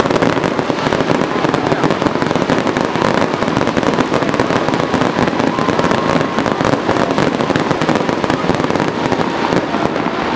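Fireworks display: a dense, continuous barrage of exploding shells and crackling, with many sharp pops packed closely together.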